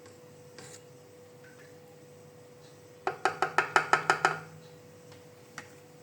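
A quick run of about ten light, slightly ringing taps lasting just over a second, a utensil knocking against the mixing bowl while ingredients go into the batter.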